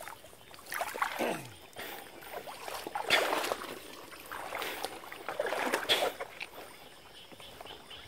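Shallow water sloshing and splashing in irregular bursts, as someone wades through flooded grass.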